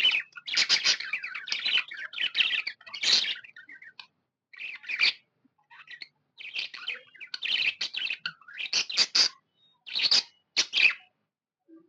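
Budgerigar chirping: quick runs of high chirps in bursts, broken by brief pauses.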